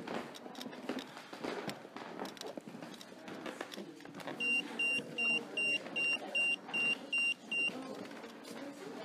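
EMF meter alarm beeping: a run of about nine short, high-pitched beeps, roughly two or three a second, starting about halfway through and stopping shortly before the end. The beeping is the meter's alert that it is picking up an electromagnetic field.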